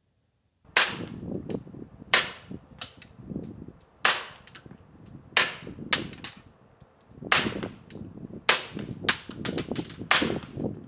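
A string of suppressed .22 LR pistol shots from a Ruger Mark-series pistol: about eight shots at uneven gaps of one to two seconds, starting about half a second in, with fainter clicks between them.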